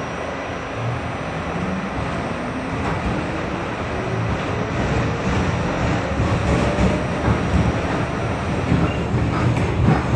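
Kawasaki R68A subway car heard from inside as it gathers speed: the rumble of wheels and running gear with a rising motor whine, slowly getting louder, and a few wheel clacks near the end.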